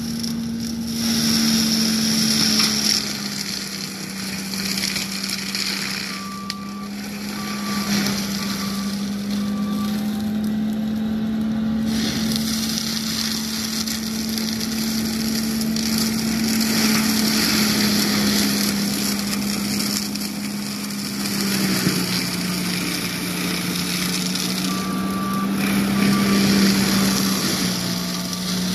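John Deere 333G compact track loader with an MH60C mulching head running hard while it grinds brush: a steady engine and drum drone that dips slightly in pitch twice late on as it takes load. A backup alarm beeps in short runs a few seconds in and again near the end.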